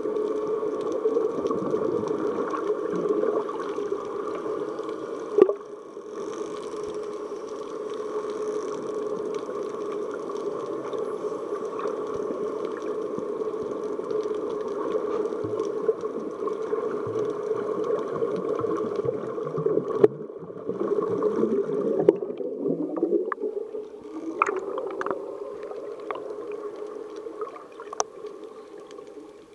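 Underwater sound picked up by a submerged action camera: a steady, muffled drone with a few sharp clicks and gurgles. A little past twenty seconds in, a hum rises in pitch.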